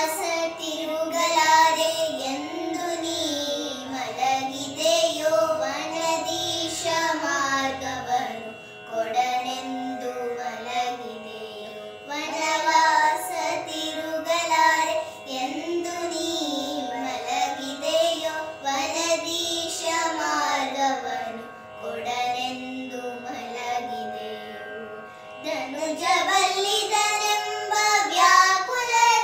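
Two girls singing a Carnatic devotional song in raga Sindhubhairavi, long melodic phrases that bend up and down over a steady drone.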